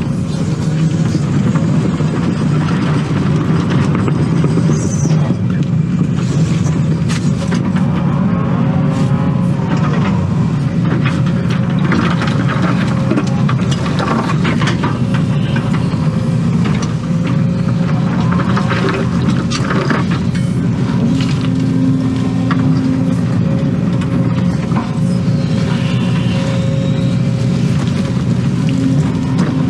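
Excavator diesel engine running steadily under digging load, heard from inside the cab, with a steady whine over it. Scattered clunks and scrapes come as the bucket digs into rocky dirt.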